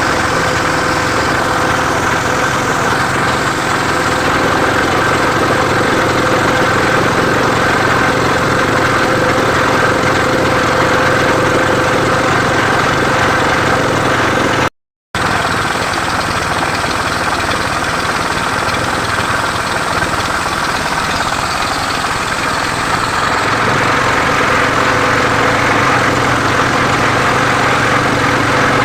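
Engine of a homemade mobile circular-saw rig running steadily, with a brief cut-out about halfway through.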